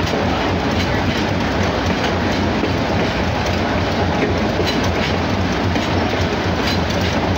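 GE 80-ton center-cab switcher locomotive's Cummins diesel engine running steadily with a low rumble, together with the train's wheels rolling on the rails and a few faint clicks. Only one of the locomotive's two Cummins diesels is running; the other was shut down after a failure.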